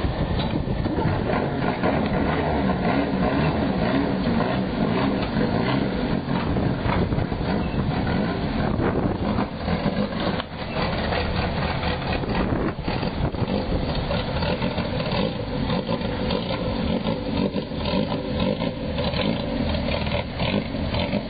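Car engines running at low speed. Over the second half it is the engine of a vintage Morgan three-wheeler pulling slowly across a yard.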